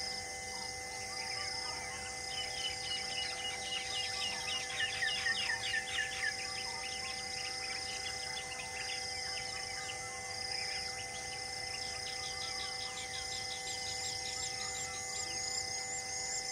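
Birds calling and insects chirping over a steady drone. A bird gives rapid runs of quick descending notes, loudest from about two to six seconds in and again near the end, while a high chirp repeats evenly throughout.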